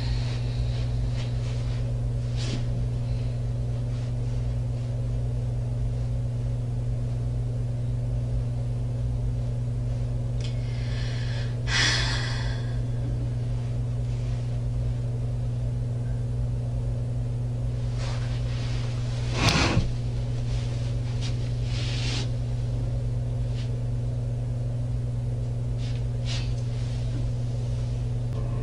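Steady low hum from a room surveillance microphone, with a few short sounds of a person moving about, the clearest about 12 and 19 seconds in.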